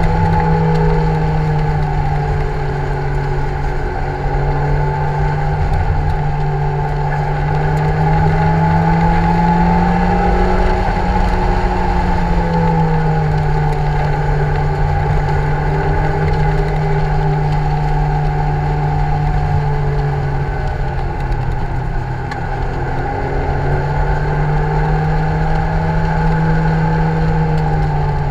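Lotus Elise 111R's 1.8-litre four-cylinder VVTL-i engine running hard at high revs, with wind and road noise in the open cockpit. The engine note climbs slowly about ten seconds in, falls back at about twelve seconds, and climbs again in the last few seconds.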